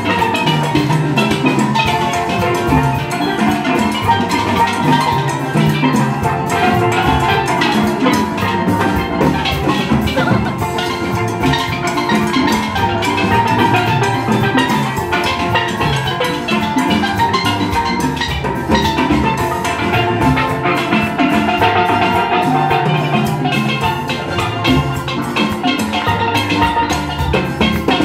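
Steel band playing a calypso live: many steelpans ringing out the melody and chords over a steady drum and percussion beat.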